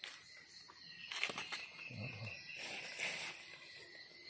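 A knife scraping soil from the base of a freshly picked Amanita mushroom, with sharp clicks about a second in and a rustle of handling and leaf litter a little later, over the steady high drone of forest insects.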